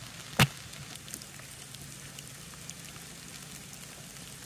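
One sharp crack about half a second in as a Scandi-ground stick tang carving knife is driven hard through a green stick in a power cut. Faint scattered ticks continue behind it.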